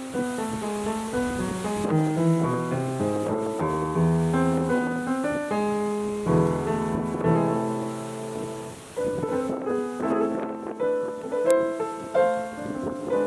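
Piano music: a sequence of sustained chords and notes played at a moderate, unhurried pace.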